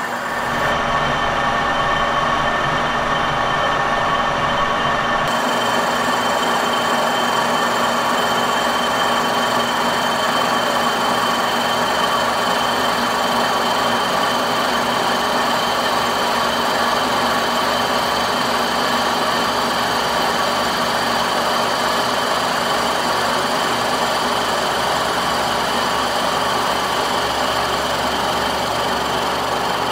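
Kearney & Trecker horizontal milling machine running steadily, its arbor-mounted slab mill cutting across a cast iron part: a constant machine drone carrying several held tones.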